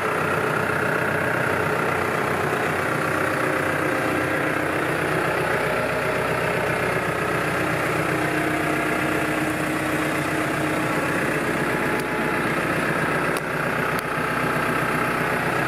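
New Holland T6020 tractor's diesel engine idling steadily, heard from inside the cab.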